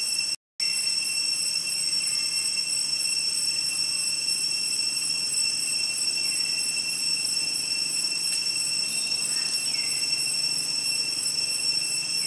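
Steady, high-pitched insect chorus buzzing in several pitches at once, with a few faint short chirps. It cuts out completely for a split second about half a second in.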